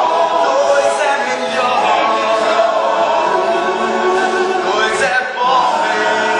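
Live musical-theatre singing: several voices together over band accompaniment, recorded from the audience seats of the auditorium.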